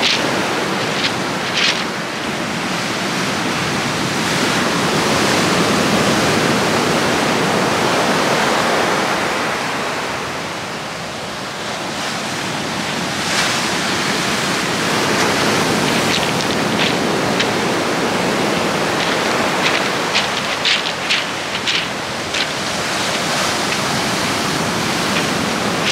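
Sea surf breaking and washing up the beach: a steady rush that swells and eases over several seconds. A few light clicks sound near the start and through the second half.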